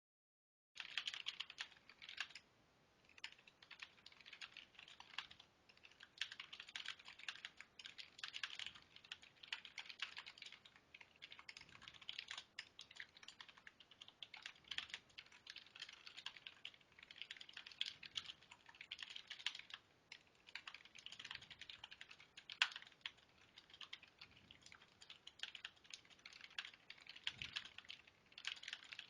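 Typing on a CM Storm Devastator membrane gaming keyboard, heard through a Skype call: fast runs of key clicks with short pauses between them, starting about a second in.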